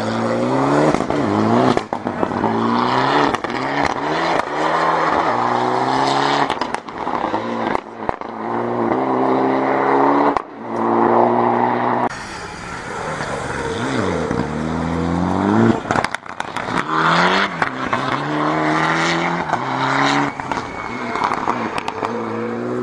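Rally car engines at full throttle, rising in pitch through each gear and dropping back at every shift, with sharp cracks at the gear changes, as cars accelerate out of corners on a tarmac rally stage.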